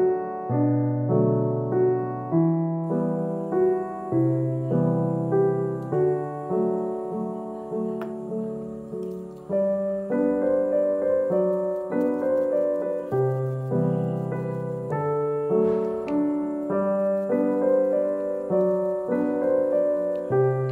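Background piano music, its notes and chords changing about once a second; a new, fuller phrase starts about halfway through.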